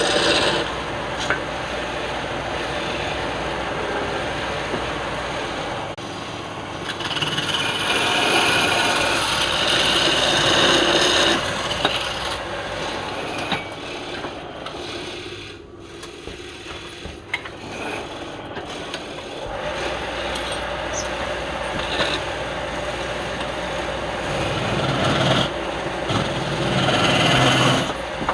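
Wood lathe turning a workpiece while a turning tool cuts and scrapes the wood: an uneven rasping and hissing that swells and eases, dropping lowest a little past halfway.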